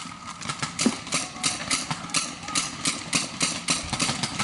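Paintball markers firing in rapid strings, about four to five sharp pops a second.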